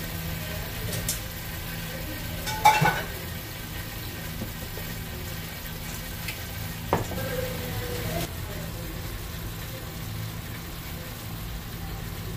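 Chicken wings being tossed in sauce in a stainless-steel mixing bowl, over a steady kitchen hiss. A sharp metal clank rings out a little under three seconds in, and a second, shorter knock comes about seven seconds in, as the bowl and tongs knock together.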